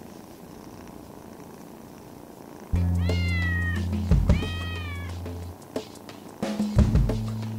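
A cat purring faintly, then about a third of the way in a music track starts with a held bass note, and two meows sound over it, each rising briefly and then falling in pitch. Near the end a second held bass note starts, along with a few clicks.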